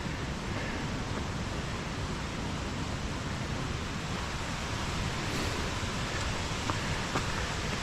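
Steady rushing of a fast-flowing mountain creek, running high with a lot of water.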